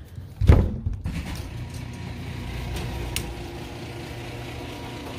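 A loud thump about half a second in, then a steady low mechanical hum with a sharp click midway.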